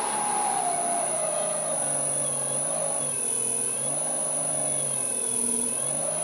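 Spare three-phase electric motor running steadily on a frequency drive, with freshly fitted bearings that have not yet run in. Its hum holds steady under a tone that slowly wavers up and down, with a steady high whine above.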